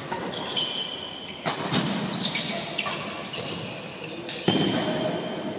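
Badminton rally: rackets striking the shuttlecock in several sharp hits, the loudest about four and a half seconds in, with short high squeaks of shoes on the court floor between them and a reverberant hall echo.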